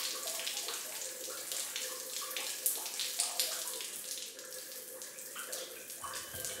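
Shower water running and spattering, a steady hiss with many small irregular splashes.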